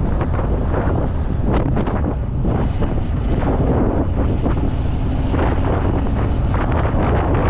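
Wind buffeting the microphone: a loud, steady rumble with irregular gusty rushes.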